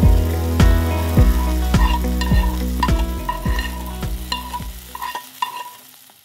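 Spaghetti in meat sauce sizzling as it is tossed and stirred with tongs in a hot frying pan, under background music with a steady beat of a little under two a second. The music's bass drops out about five seconds in, and everything then fades out.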